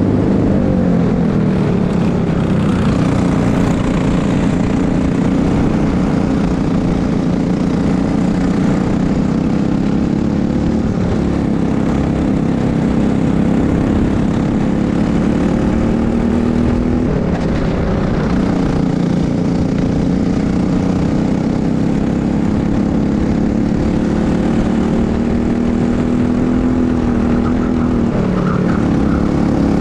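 Briggs & Stratton LO206 single-cylinder four-stroke kart engine running hard at racing speed. Its revs drop briefly and climb back several times, as the kart lifts for corners and accelerates out.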